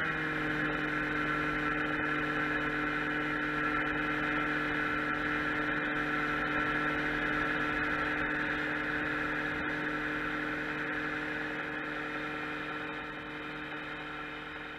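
Outboard motor pushing a small boat along at a steady, even speed: a constant droning hum with a hiss of water and wake over it. It grows quieter near the end.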